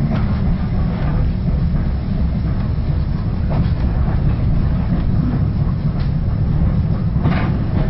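Steady rumble of a railway passenger coach running along the track, heard from inside the coach, with a few faint irregular clicks from the wheels and rails.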